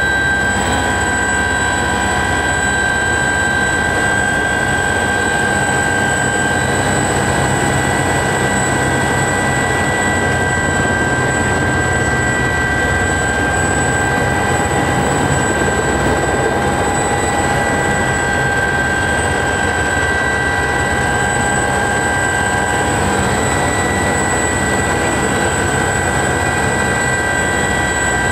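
Cabin noise of an Aerospatiale SE 313B Alouette II helicopter in flight: its Turbomeca Artouste turboshaft gives a steady high whine of several fixed tones over a dense low rumble, unchanging as the helicopter banks.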